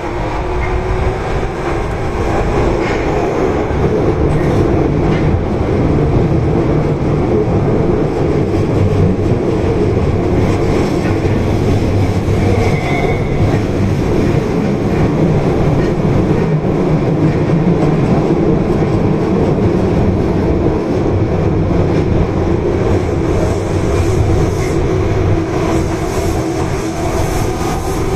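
Tanimachi Line subway car 22659, with Hitachi GTO-VVVF traction control, running through the tunnel: a steady, loud rumble of wheels on rail and traction motors, building over the first few seconds and then holding at speed.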